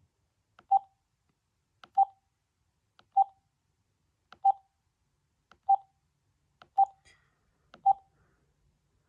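Keys on a Vtech CS6829-2 DECT 6.0 cordless handset being pressed one at a time. Each press gives a faint click and a short single-pitched beep, seven beeps a little over a second apart.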